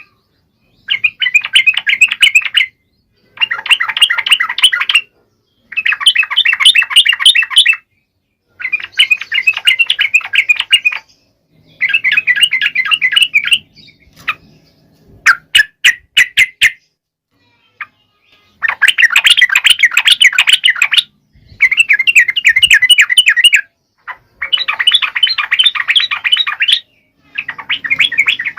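A trucukan (yellow-vented bulbul) singing loudly in repeated bursts of fast, bubbly chattering song, each phrase about two seconds long with short pauses between. Partway through, one phrase breaks into a few sharp separate notes. This is the vigorous 'gacor' song used as a master track to get other birds singing.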